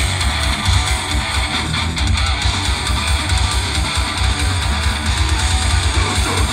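Live grindcore band playing through a PA: distorted electric guitar, bass guitar and drums, loud and continuous with a heavy, pulsing low end.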